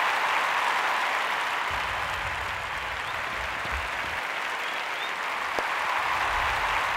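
Crowd applauding steadily, with a low rumble coming and going underneath.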